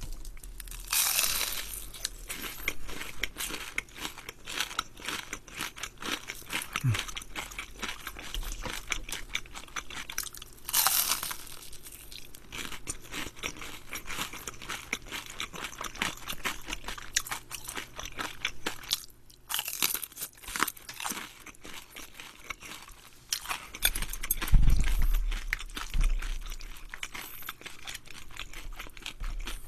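Close-miked crunching and chewing of deep-fried battered shrimp, a dense crackle of small crisp snaps with louder crunchy bites about a second in, around eleven seconds and around twenty seconds. A dull low thump comes a few seconds before the end.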